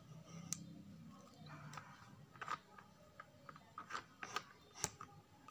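Scattered light clicks and taps of a camera stand being handled and pushed upward, with a faint low hum in the first second or so.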